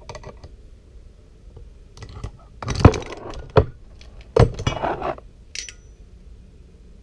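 A steel three-jaw bearing puller and crankshaft parts clattering and clanking as the puller is lifted off the crankshaft and set down on the workbench. The clanks come in two bursts, about three and four and a half seconds in, followed by one short ringing clink.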